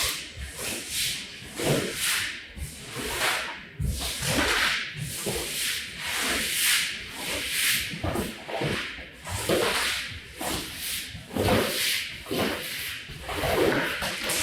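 Repeated rubbing strokes across a rug caked with dried mud and farm grime, about one stroke a second.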